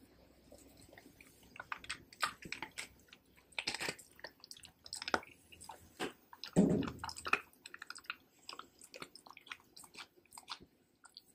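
Pit bull licking and chewing at peanut butter in a rolled chew: a run of wet smacks and tongue clicks, with one louder, deeper sound a little past halfway.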